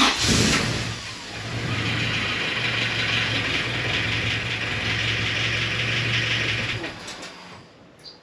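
Boosted Honda G23 four-cylinder engine (H22 head on an F23 block) running steadily at idle, then shut off about seven seconds in. The owner is chasing a cold-idle valvetrain tick, and new lost motion actuators have not cured it.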